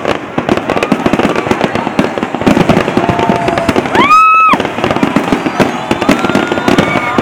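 Many fireworks going off at once in a dense run of bangs and crackling. About four seconds in, a loud whistle rises and holds for half a second.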